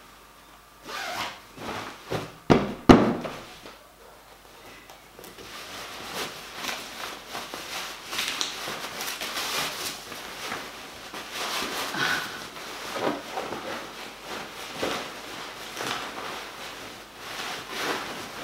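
Cloth rustling and rubbing as a cushion insert is pulled out of one cushion cover and stuffed into another. A few sharp thumps come between one and three seconds in, the loudest near three seconds, and then the fabric rustling goes on without a break.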